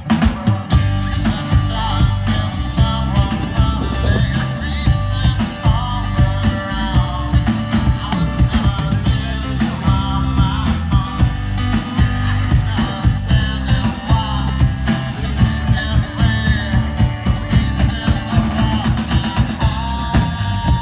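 Live rock band playing a song: drum kit, electric guitars and an acoustic guitar.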